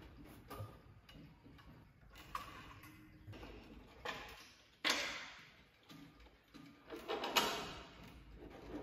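ODO 36/8 pendulum wall clock ticking while its wooden case is opened and the movement is handled, with small knocks and clicks. Two louder sudden handling noises come about five and about seven and a half seconds in.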